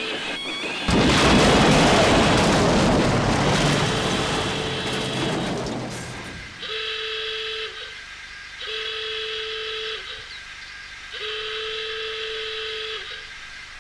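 Thomas the Tank Engine's steam whistle: a loud rushing hiss about a second in that fades over some five seconds, then three long blasts on the whistle, a steady chord-like tone.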